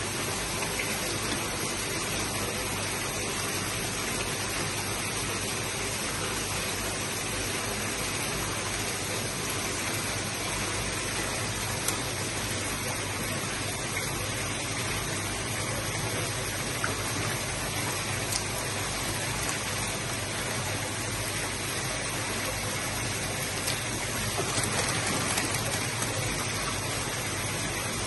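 Steady rush of running water from koi holding tanks. A few light crinkles come from a plastic fish-shipping bag, and the water sloshes a little near the end as the bag is worked open in a water-filled tub.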